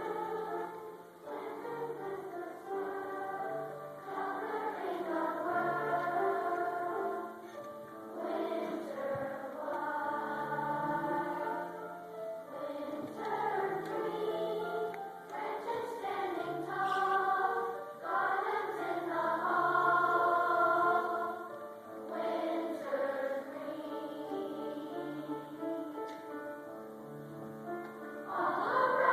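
Choral music: a choir singing a slow melody over low held notes that change every few seconds.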